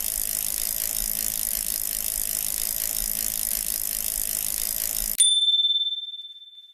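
Bicycle rear freewheel hub buzzing with a fast, even ratchet clicking as the wheel spins freely. About five seconds in, a bicycle bell is struck once, and its single clear ring dies away over about a second and a half.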